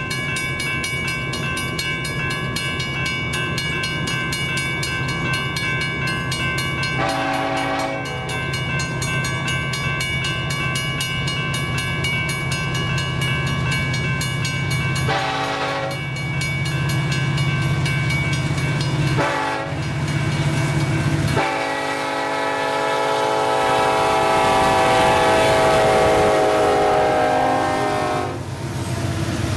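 Diesel locomotive air horn sounding long held blasts over the low rumble of the engines, with brief breaks in the pattern. About two-thirds of the way through the horn drops lower in pitch and gets louder as the locomotives reach and pass the crossing.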